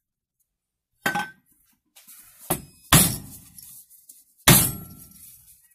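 Four sharp metal blows, each with a short ringing tail, the last two the loudest, struck on the stock exhaust canister of a 2007 Honda CRF250R to bash the old end cap loose once its rivets are drilled out.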